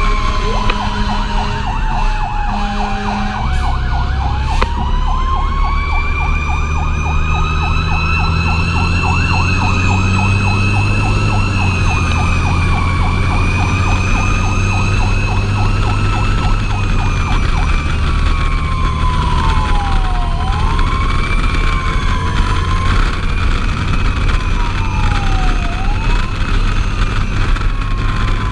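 Fire engine siren sounding while the truck drives: a falling wail that switches about four seconds in to a fast yelp, then goes back to slower rising and falling sweeps. A second, higher siren tone glides above it. The truck's engine rumbles underneath and grows louder as the yelp starts.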